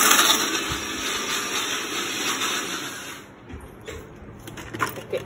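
Electric mixer grinder running, its blades grinding broken biscuits to powder in the steel jar; it cuts off about three seconds in.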